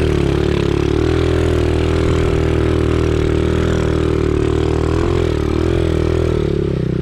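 Mini dirt bike engine running at low, steady revs while being ridden along a sandy trail, its pitch rising and dipping slightly about five seconds in.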